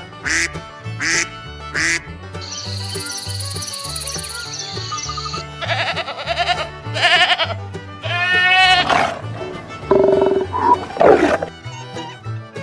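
A series of farm animal calls, three short ones in quick succession, then several longer ones, one with a wavering falling pitch, over background music with a steady bass line.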